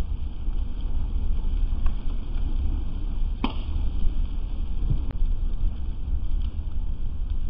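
A burning boat's fire giving a few sharp pops and cracks, the loudest about halfway through, over a steady low rumble.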